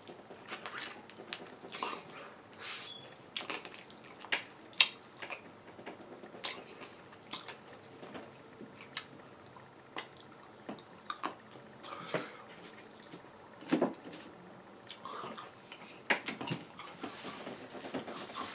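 Close-up mouth sounds of a person eating a sauced bone-in chicken wing: wet chewing, lip smacks and sucking, with irregular sharp clicks.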